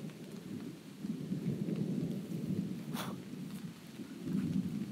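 Thunder rumbling low in swells as a storm passes, with rain falling, and a single sharp tick about three seconds in.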